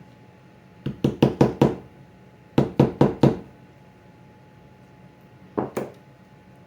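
Sharp knocks on wood in quick runs: five rapid taps about a second in, four more a moment later, then two near the end.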